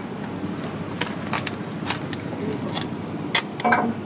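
A vehicle engine running steadily, with several sharp knocks and clanks of scrap metal spread through it, the loudest just before the end.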